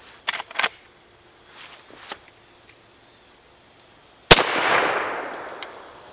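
A few sharp clicks, then about four seconds in a single shot from a Henry Lever Action X .410 lever-action shotgun firing #6 birdshot. The report is very loud and rings out, dying away over about a second and a half.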